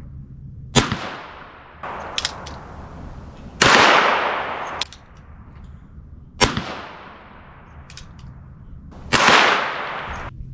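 Revolver shots from a Ruger Super Wrangler .22 firing single rounds about two to three seconds apart, five in all. Each shot is a sharp crack that trails off in a long echo.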